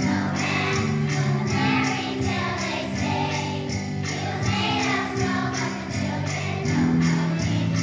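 A children's choir singing a Christmas song with musical accompaniment and a steady jingle-bell beat, about four shakes a second.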